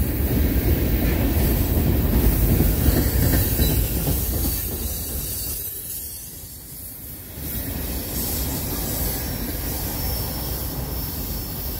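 Freight train's tank cars and covered hoppers rolling past close by, a steady rumble and clatter of steel wheels on the rails. The sound eases about six seconds in, then picks up again.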